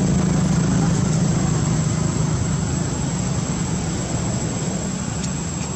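Low engine drone that holds steady, then slowly fades, as of a motor vehicle passing at a distance.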